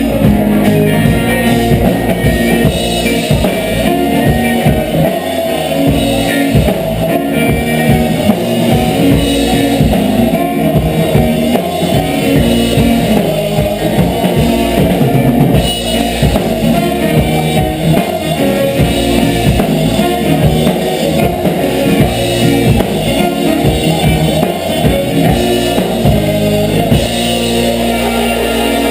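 Band playing dub reggae with drum kit and guitar, an instrumental stretch with a steady beat and no singing.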